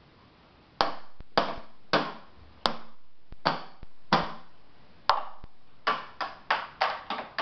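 A toddler drumming with a pair of sticks on a wooden box: single sharp wooden strikes, each ringing briefly, about one every half second to second, with lighter taps between, quickening into a fast run of hits near the end.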